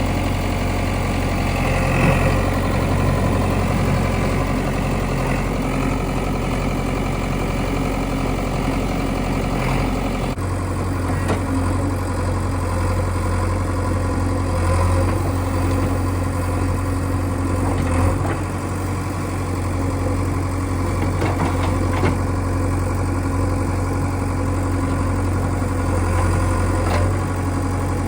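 Diesel engine of a backhoe loader running steadily at work, with a few short knocks and clanks. The engine's tone shifts abruptly about ten seconds in.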